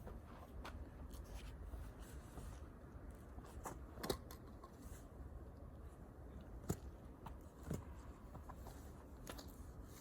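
Wood fire crackling: scattered sharp pops and snaps every second or so over a low steady rumble.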